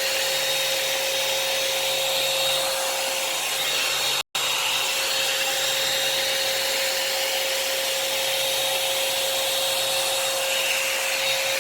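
Revlon hot-air dryer brush running steadily as it is passed through wet hair: an even rush of blown air with a steady motor whine. The sound cuts out for a split second about four seconds in, then carries on unchanged.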